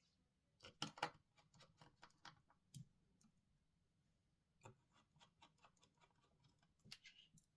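Faint, scattered clicks and taps of small tools and parts against a smartphone's frame as components are fitted during reassembly, with a cluster of sharper clicks about a second in.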